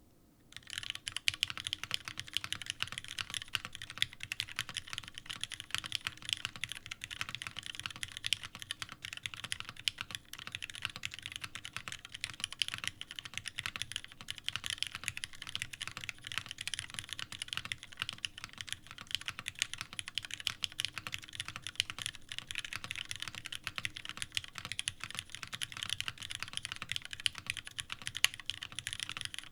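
Continuous fast typing on a custom mechanical keyboard fitted with lubed Cherry Retooled Black linear switches, an aluminum plate in an O-ring mount and OG Cherry doubleshot keycaps. It makes a dense, unbroken stream of keystroke clacks that starts about half a second in.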